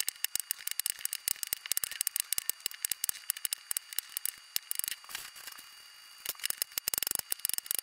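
Chef's knife chopping raw potatoes on a plastic cutting board: quick, irregular taps of the blade on the board. The taps ease off a little past halfway and pick up again near the end.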